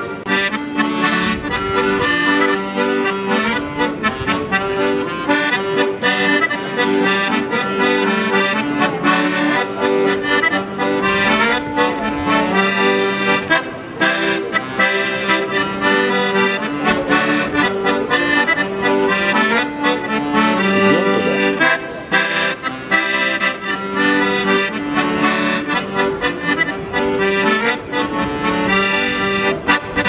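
Piano accordion played by a street musician: a tune of held, changing notes over steady lower chord notes, without a break.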